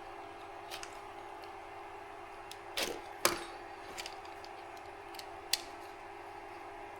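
Scattered light clicks and taps from handling wires and small tools at a workbench, with two louder knocks close together about three seconds in, over a steady hum.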